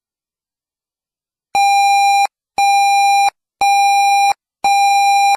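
Emergency Alert System activation alert: after about a second and a half of dead silence, four identical steady electronic beeps about a second apart.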